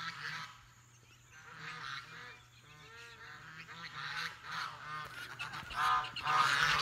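A flock of domestic geese honking over and over, the calls getting louder and coming thicker near the end.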